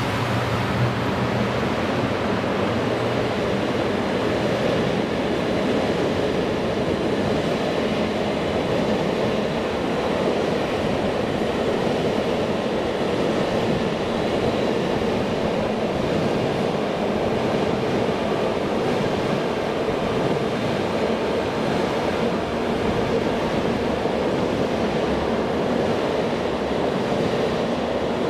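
Container freight train passing at speed behind a Class 66 diesel: the locomotive's engine fades within the first second, then a steady, even noise of the container wagons rolling past on the rails.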